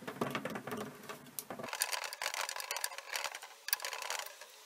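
A screw being driven by hand with a screwdriver through the metal plate of a magnetic cabinet catch into a wooden door: a run of small quick clicks and scrapes that stops a little before the end.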